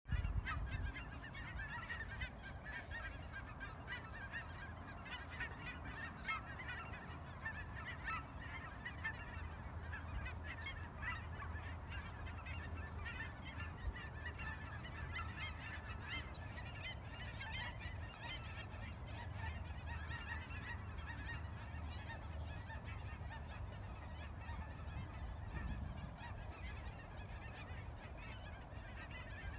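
A large flock of geese honking continuously, many calls overlapping.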